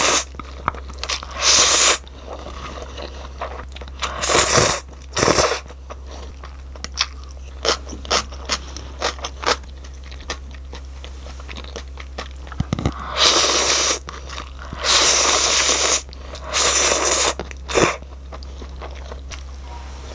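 A person slurping instant jjajang cup noodles, in about eight loud sucking bursts at irregular intervals, with chewing between them.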